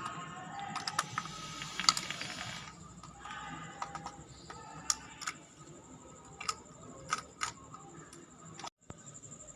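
Small sharp clicks and crackles, with two hissing, crackling stretches in the first four seconds, then scattered single clicks; the sound drops out for a moment near the end.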